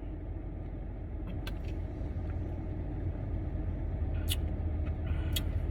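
Steady low rumble of a car, heard from inside the cabin, with a few short faint clicks.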